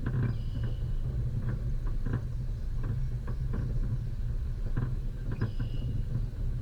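Off-road vehicle driving a rough dirt track: a steady low rumble of engine and tyres, with frequent knocks and rattles from the bumpy ground.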